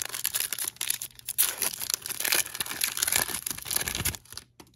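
Plastic wrapper of a Panini Donruss basketball card pack being torn open and crinkled, a dense crackling rustle that stops about four seconds in.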